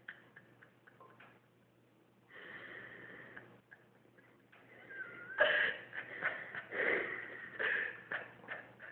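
A man laughing under his breath in short, irregular bursts, starting about halfway through, after a faint scratchy rustle.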